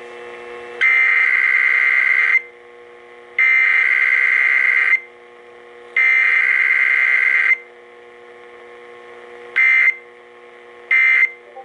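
Emergency Alert System SAME header tones: three long, loud, buzzing digital data bursts about a second apart, followed by two short bursts. A faint steady hum sits underneath.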